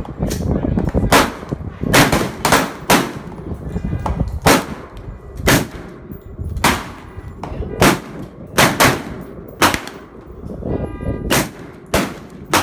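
Semi-automatic AR-15 rifle fire on a shooting range: more than a dozen sharp shots at uneven intervals, roughly one a second, with some in quick pairs. Each shot is followed by a short echo.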